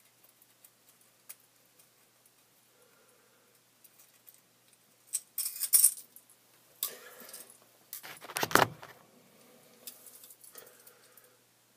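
Small metal objects jingling and clinking as they are handled close to the microphone, in a few short bursts about five, seven and eight and a half seconds in. The last burst is the loudest.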